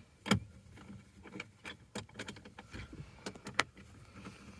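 Scattered small clicks and taps of a small hand screwdriver driving Phillips screws to fasten a metal phone-mount base into a truck's dash, with a louder knock near the start and another about three and a half seconds in.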